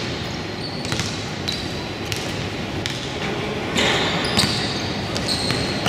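Youth basketball game in a gym: the ball bouncing on the court several times, with short, high sneaker squeaks over steady gym noise.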